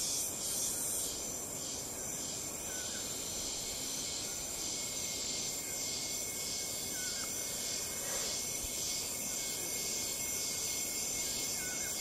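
Insect chorus: a steady, high-pitched buzzing and trilling that pulses gently, with a few short chirps now and then over a low, even hiss.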